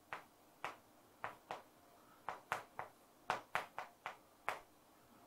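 Chalk tapping and clicking against a chalkboard while a word is written: about a dozen short, faint taps at an uneven pace.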